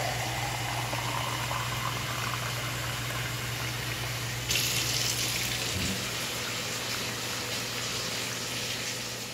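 Hot water running from a kitchen tap into a plastic cup, with a note that rises as the cup fills, then getting louder about halfway through. Near the end the water is poured from the cup into the pan of cooking vegetables.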